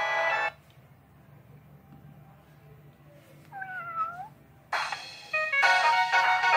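A Samsung ringtone melody on a ZTE Z222 phone stops abruptly half a second in. After a pause a cat gives a single meow, falling and then rising slightly, just under a second long. Another ringtone melody starts near the end.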